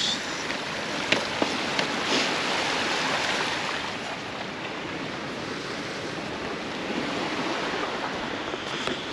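Sea surf breaking and washing up a beach: a steady rush that swells and eases, with a few light clicks in the first two seconds.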